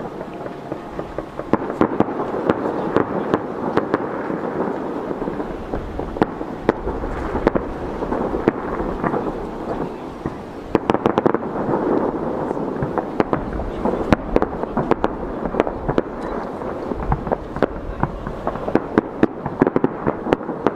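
Fireworks display going off: a continuous rumble of bursts with many sharp pops and crackles, growing denser about halfway through and in the second half.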